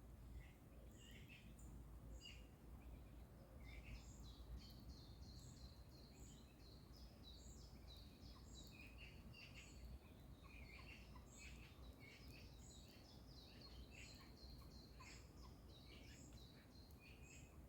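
Faint birdsong: many short, high chirps and twitters from several birds overlapping, over a low steady rumble.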